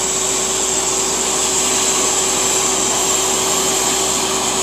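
High-speed spindle of a micro CNC router running steadily with a 1/8-inch roughing end mill, cutting as it surfaces the machine's board flat: an even motor whine over steady cutting hiss.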